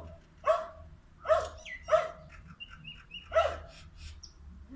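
A dog barking: four barks, irregularly spaced across the few seconds.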